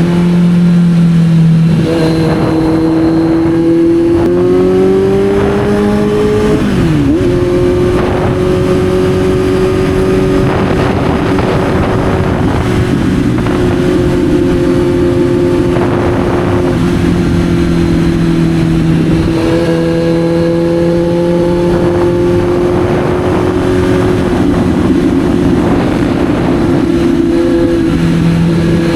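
Kawasaki Z900's inline-four engine running under way, with a rushing noise over it. The revs climb, drop sharply about seven seconds in as on an upshift, then hold nearly steady at cruising speed.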